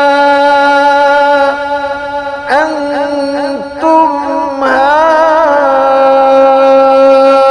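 Male Quran reciter's voice holding one long, steady note in ornamented tajweed recitation. A little past two seconds in it breaks into a run of quick melodic turns, then settles back onto a held note.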